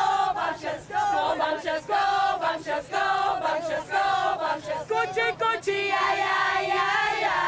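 A group of women's voices chanting together in unison, a rhythmic team cheer in short, held phrases.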